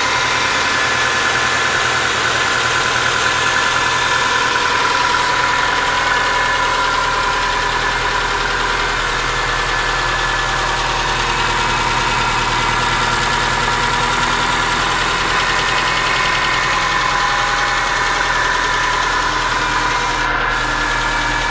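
A 1998 Subaru Forester's flat-four boxer engine idling steadily, with a knock that the owner puts down to the number four cylinder.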